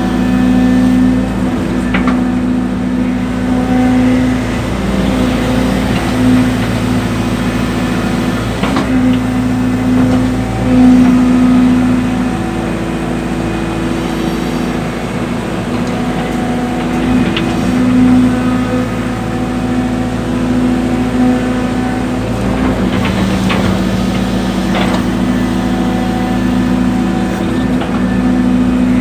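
Hydraulic excavator's diesel engine running under digging load, its level swelling and easing as the arm and bucket work, with a few sharp knocks along the way.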